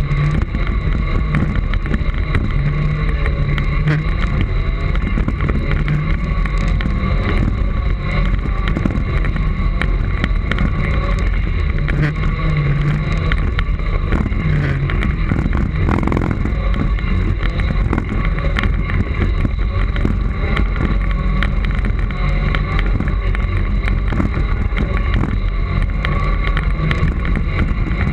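Segway personal transporter riding over a bumpy dirt forest track, heard from the rider's camera: a steady low rumble with wind noise on the microphone and a constant high whine.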